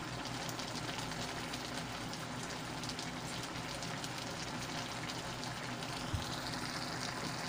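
Shrimp, string beans and malunggay leaves simmering in coconut milk in a wok: a steady soft bubbling crackle.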